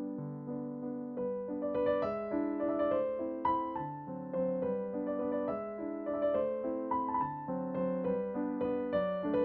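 Background piano music: a melody of struck notes over held lower notes.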